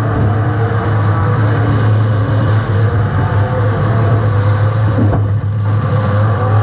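Compact race car's engine running hard, heard through a GoPro mounted at the rear of the car, with a steady low drone under wind and road noise and the engine note rising and falling a little with the throttle.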